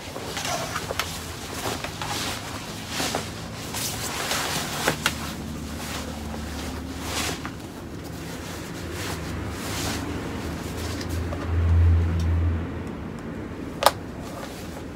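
A neoprene wetsuit being handled and turned inside out on a workbench: irregular rustling and rubbing with small clicks for about the first half. A brief low rumble comes about three-quarters of the way in, and a single sharp tap comes near the end.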